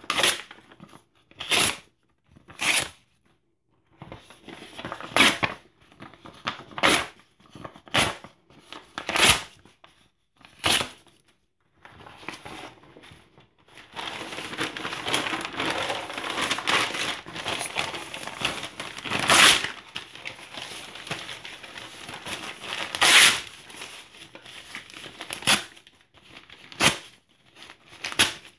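Paper documents and newspaper torn by hand, close up: a string of short separate rips, then from about halfway a steady crinkling and rustling of paper scraps broken by a couple of louder rips, then short rips again near the end.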